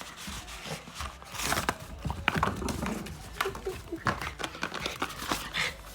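A mame shiba dog moving and playing, making irregular taps and scuffles with a few short noisy bursts.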